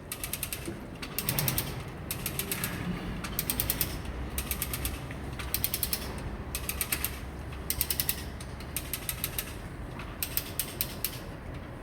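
Hand winch ratchet clicking as the winch is cranked in repeated strokes, each stroke a quick run of clicks, about one a second. The winch is hauling on a magnet snagged underwater to pull it free.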